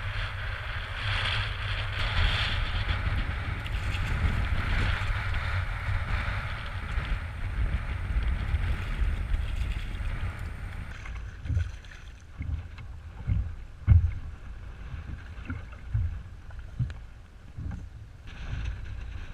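Strong wind buffeting the microphone over choppy water, a steady rushing noise. About eleven seconds in it turns quieter, broken by a series of irregular dull thumps, the loudest a little after the middle.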